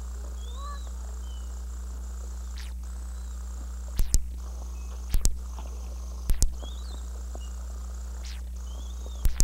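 A steady low hum from an old camcorder's audio track, with faint high chirps over it. Four times, at roughly one-to-three-second gaps, it is broken by a pair of sharp clicks. The first pair comes as the picture tears, which fits tape glitches.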